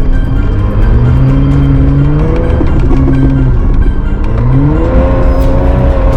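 Background music over a vehicle engine whose pitch climbs, drops about two and a half seconds in, then climbs again and holds.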